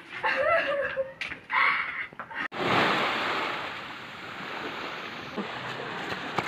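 A person's voice briefly, then from about two and a half seconds in, small waves washing onto a pebbly beach as a steady rushing noise, strongest just after it starts and then easing.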